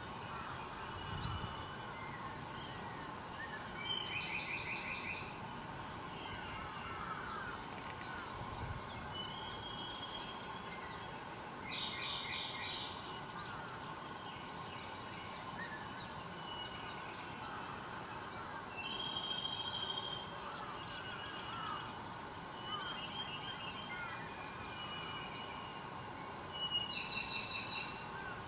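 A chorus of several wild birds singing and calling, with short whistled chirps throughout and a rapid buzzy trill phrase that comes back about every seven or eight seconds.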